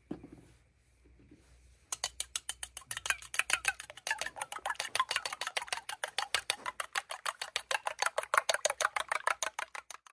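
A fork beating quickly against the inside of a stainless steel bowl: a fast, even clicking of metal on metal, about six strokes a second, that starts about two seconds in and stops suddenly.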